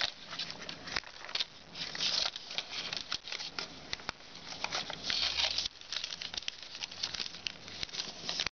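Foil origami paper crinkling and rustling as it is creased and pleated by hand, with irregular small crackles as each fold is pressed.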